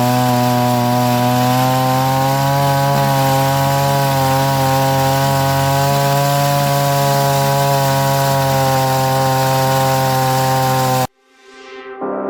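Chainsaw running steadily at full throttle under load, ripping lengthwise through a log in an Alaskan chainsaw mill. It cuts off abruptly near the end, and a gong-like ringing follows.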